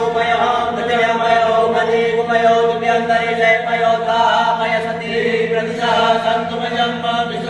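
Several voices chanting mantras together in a steady, continuous chant: the mantra recitation that goes with an abhishek, the ritual bathing of a Shiva image.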